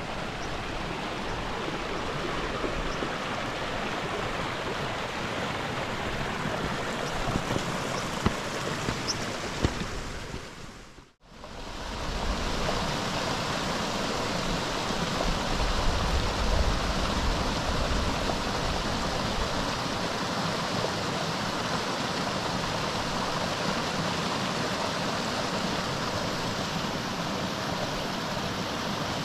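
Small mountain stream running over rocks: a steady rush of water. It is broken by a brief drop about eleven seconds in, then a similar steady rush carries on.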